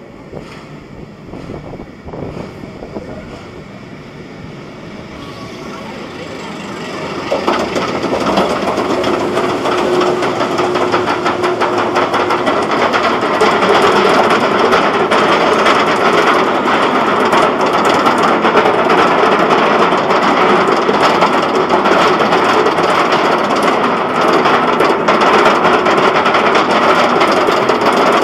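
B&M wing coaster train running along the track: a dense rattle and rumble that builds about six seconds in, then holds steady and loud.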